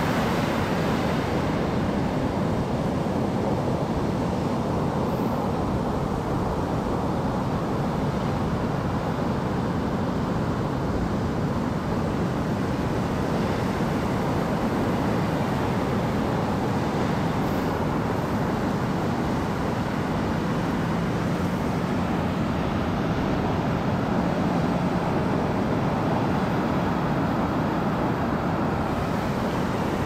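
Steady low rush and rumble of ocean ambience, even throughout, with a faint hum joining in about two-thirds of the way through.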